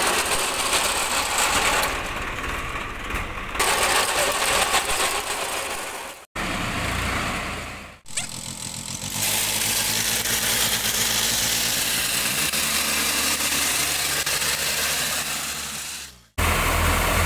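Tractor engine running with a front-mounted wheat reaper working. The sound is loud and steady, and it breaks off abruptly three times where the clips are cut.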